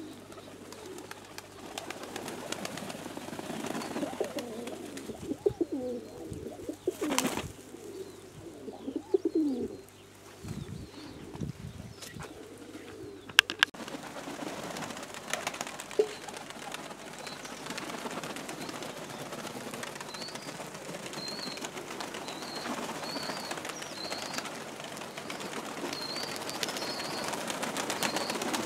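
Domestic pigeons cooing, low gliding calls repeated through the first half. A sharp knock comes about halfway. After it there is a steady outdoor hiss with faint, repeated high chirps.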